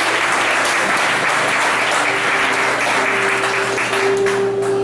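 A congregation applauding in dense, steady clapping that thins into separate claps near the end, with a sustained musical note held underneath from about two seconds in.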